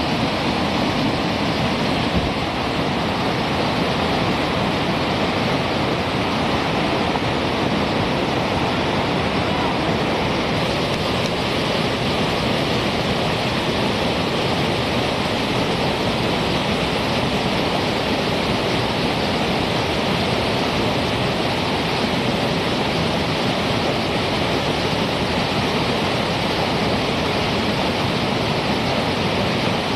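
Whitewater rapids rushing steadily over rocks, a constant full noise of fast, broken water.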